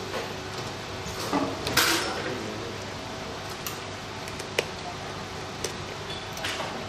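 Hard objects being handled, clinking and knocking a few times, the loudest knock just under two seconds in, over a steady low hum.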